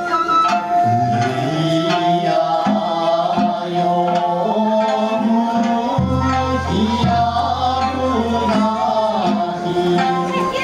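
Ryukyuan classical music playing for a dance: a sanshin plucked under a sung vocal line, continuous throughout.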